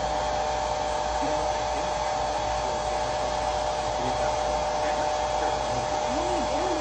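Hair dryer blowing at a steady pitch with a constant whine, switched on abruptly and cut off abruptly after about seven and a half seconds.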